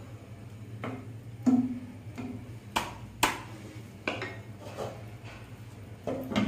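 Wooden spatula knocking and scraping against a nonstick frying pan while stirring beef in gravy: a series of separate knocks over a steady low hum. Near the end a glass pan lid is set down on the pan with a clink.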